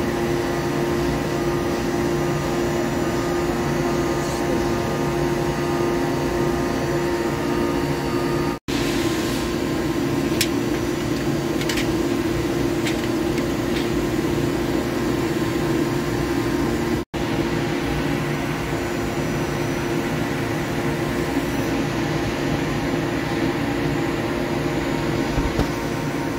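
Steady drone of running machine-shop machinery: a hum with several steady tones over it. It drops out abruptly for an instant twice, about a third and about two thirds of the way in.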